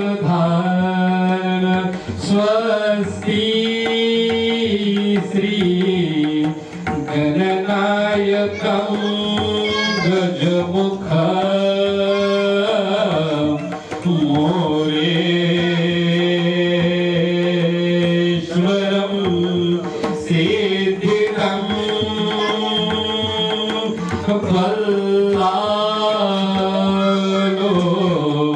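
A man singing a devotional song into a microphone, accompanied by tabla.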